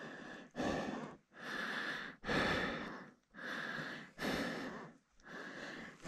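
A person breathing hard close to the microphone: about seven quick, even in-and-out breaths.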